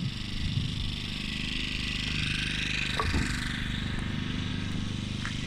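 Steady low engine hum, with a hiss that swells and fades about halfway through and a couple of faint clicks.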